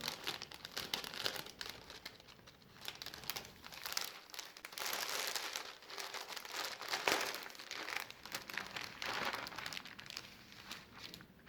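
Packaging crinkling and rustling as it is handled, with irregular small clicks and one sharper click about seven seconds in.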